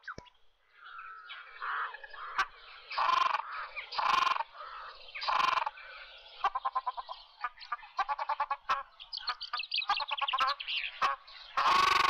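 Ruddy shelducks calling, the recorded call used to lure them for hunting. Three loud honking calls come about a second apart, then runs of quicker, shorter calls, and another loud honk at the very end.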